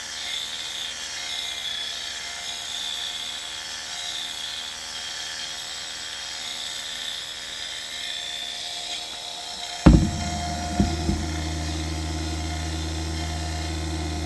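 The electric gyro of a turn-and-slip indicator spinning with a high, steady whine. About ten seconds in there is a sharp loud click as the alligator-clip power leads are handled on the instrument's terminal, and a steady low electrical hum starts, with a few smaller knocks after it.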